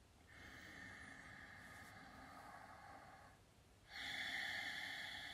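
A woman breathing deeply close to the microphone, as in a guided breathing exercise: one long breath of about three seconds, then after a short pause a louder breath starting about four seconds in.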